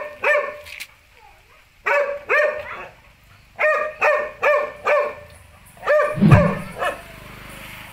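A dog barking in quick bouts of two to five barks with short pauses between them. There is a low thump about six seconds in.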